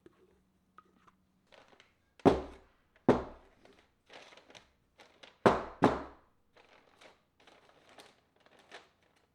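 Four sharp thuds in two pairs, the second pair about two seconds after the first, with light rustling and crinkling of handled objects in between.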